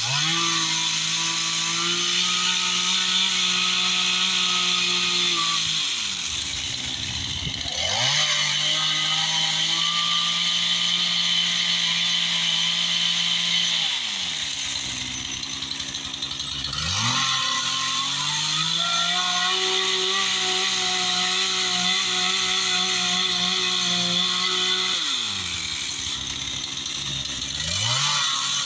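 Gas chainsaw held at high revs, cutting into wood. The engine drops back briefly and then revs up again three times: about six seconds in, around the middle, and near the end.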